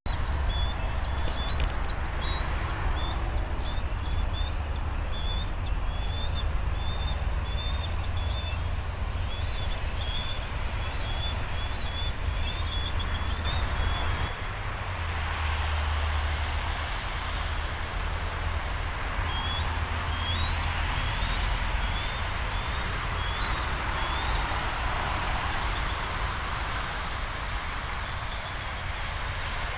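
Adult bald eagle calling: a long series of short, high piping notes, about two a second, that stops about halfway through and starts again a few seconds later. A steady low rumble runs underneath.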